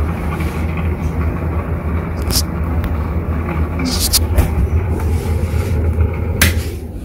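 Airflow ceiling exhaust fan running with a steady low hum, switched off with a sharp click of the wall switch about six seconds in, after which the hum dies away.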